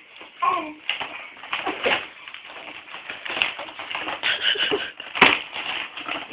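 A baby's squeaky babbling among light tapping and rustling, with one sharp knock about five seconds in.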